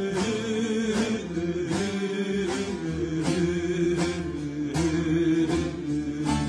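Instrumental interlude of Alevi folk music without singing: a bağlama (saz) playing a plucked melody over sustained, drone-like notes.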